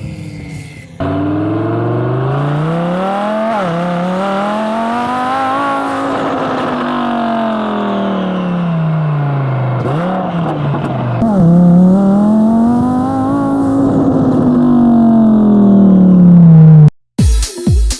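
Twin-turbo Audi R8 engine under hard acceleration, revs climbing with a quick shift about three and a half seconds in, then falling away as the driver lifts. A second pull about ten seconds in climbs and falls the same way, loudest just before it cuts off. Music with a thumping beat starts near the end.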